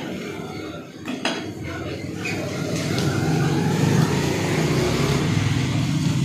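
A butcher's cleaver chops once into the wooden chopping block about a second in, with a couple of lighter knocks after it. A steady low mechanical hum then rises and holds.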